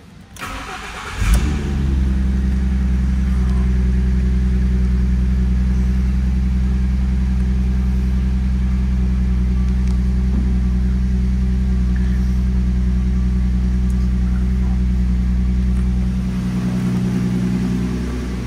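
2012 Ford Mustang's 3.7-litre V6 cranking and starting, with a brief rise in revs as it catches about a second in. It then idles steadily and turns a little quieter near the end.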